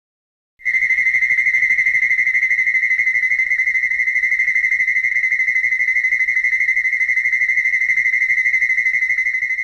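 A synthesized sound effect: a loud, steady high-pitched electronic tone with a fast, even warble and a low pulsing buzz beneath it, starting about half a second in and holding.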